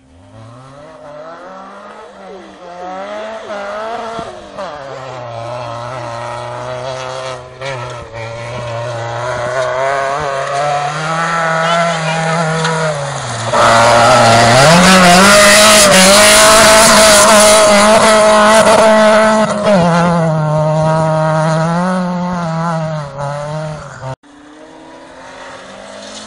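Rally car engine on a gravel stage, revving up and down through gear changes as it approaches. About halfway through it passes close at full throttle, much louder, with a hiss of tyres and thrown gravel, then fades as it pulls away. Near the end another rally car is heard running further off.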